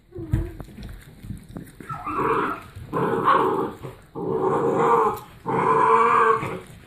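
Seven-week-old puppy growling over a raw chicken back it is holding and chewing: four drawn-out growls, each lasting under a second, starting about two seconds in. A low thump comes just before them, near the start.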